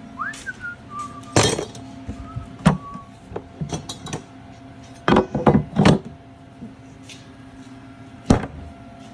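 Knocks and clinks of handling as a homemade steel cooler mount is set into the plastic bed of a Polaris RZR Pro XP and a plastic cooler is fitted onto its tabs. A run of sharp knocks, the three loudest close together about five to six seconds in and one more near the end, over a steady low hum.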